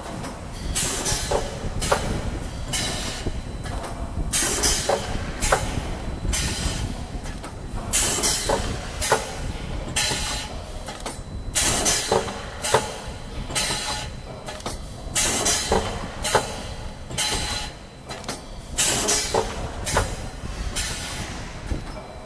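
Vertical form-fill-seal packaging machine running. Its pneumatic sealing jaws give repeated bursts of air hiss with sharp clacks, roughly once a second, over a steady low mechanical hum.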